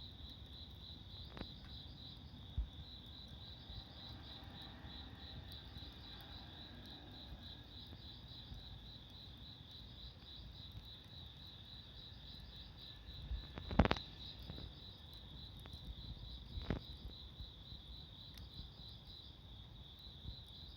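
Crickets chirping steadily in rapid pulses, with a few sharp pops from a wood fire; the loudest pop comes about 14 seconds in.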